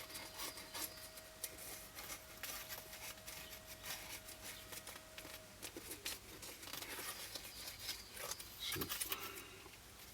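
Faint handling noises of gluing work: small clicks, rustles and scrapes as glue is run into the gaps around the fitting, with a slightly louder scrape near the end. A faint steady hum stops about halfway through.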